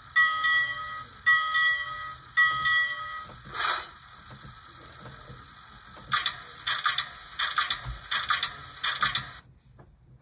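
Digitrax SDXH166D sound decoder playing a diesel locomotive bell through its small speaker: ringing strikes about one a second, then a quicker run of strikes from about six seconds in that cuts off sharply near the end.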